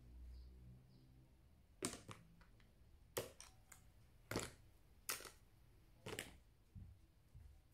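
Small plastic cosmetic items, eyeliner pencils and a compact, clicking and tapping against each other as they are set down one by one: about half a dozen short, sharp clicks a second or so apart.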